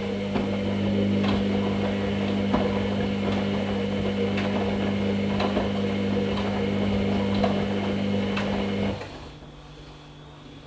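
Hoover Nextra HNL662 washing machine tumbling its drum: a steady motor hum with light knocks about once a second. The motor stops about nine seconds in for a pause, then starts again at the very end as the drum turns the other way.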